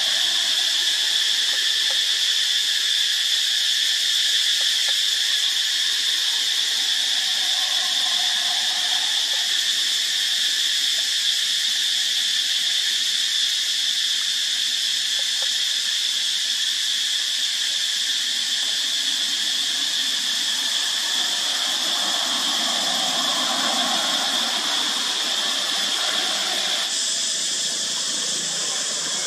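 Loud chorus of cicadas: a steady, shrill, unbroken high-pitched drone.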